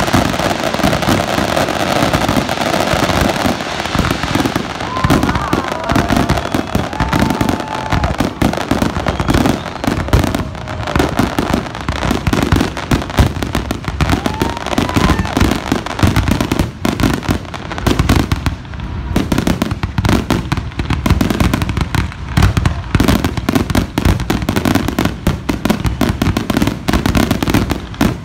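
Fireworks display finale: a dense, rapid barrage of aerial shells bursting in quick succession, the loud reports overlapping with crackle.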